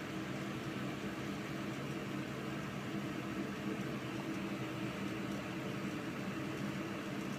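Mitsubishi EFG-20KB pressure ventilation fan running steadily: an even rush of air over a low hum made of several steady tones.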